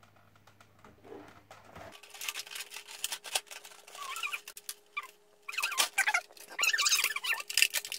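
Thin clear plastic bag crinkling in irregular bursts as it is handled and torn open, starting about two seconds in and loudest in the last few seconds.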